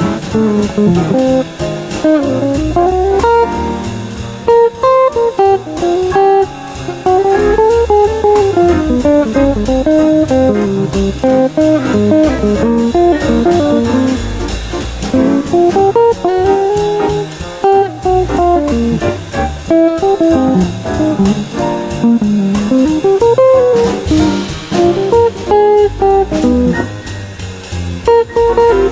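Electric guitar playing jazz: a flowing single-note line that keeps climbing and falling in phrases.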